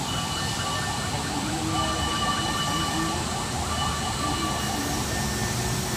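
Heavy truck engine running steadily while a crane lifts a corrugated-metal stall, with a faint high whine that comes and goes over it.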